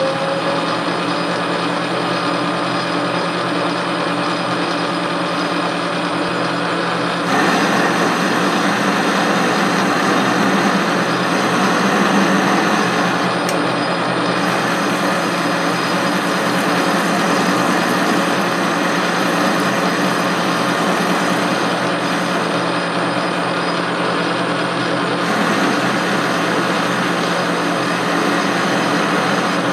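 Metal lathe running with a steady motor and gear whine while a cutting tool turns the lead screw blank. The cutting noise gets louder about a quarter of the way in, eases for a few seconds around two-thirds through, then picks up again.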